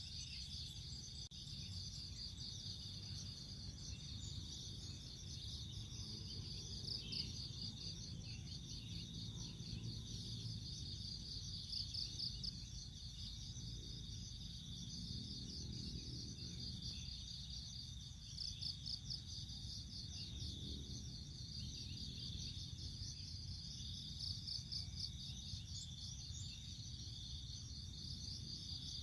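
A steady chorus of insects trilling, high-pitched and pulsing rapidly, over a low rumble. A few lower swells rise and fade around the middle.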